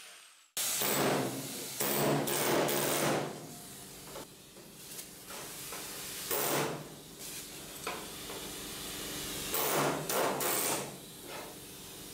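Pneumatic air chisel hammering against the sheet metal of a pickup's cab corner in several short bursts of about a second, with quieter pauses between, popping the spot welds loose.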